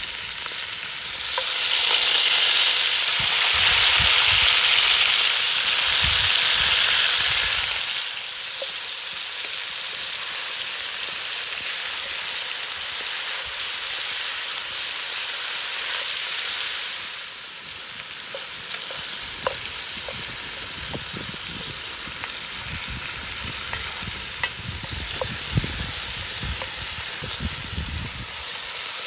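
Chunks of impala neck sizzling in hot fat in an enamelled cast-iron pot, browning over high heat. The sizzle is louder for the first several seconds, then settles to a steady hiss with occasional pops.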